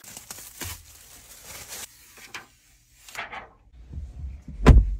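Clear plastic protective film crinkling and rustling as it is pulled off a new car's steering wheel, then a single loud low thump near the end.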